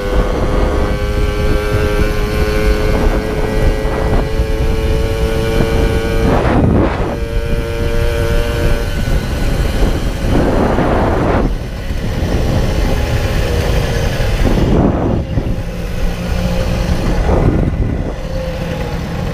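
Puch Maxi Luxe moped's 50cc two-stroke engine running under way through a Puch Radical sidebleed expansion-chamber pipe, a steady whine that creeps up in pitch over the first nine seconds and then fades back. Several short bursts of wind rush over the microphone.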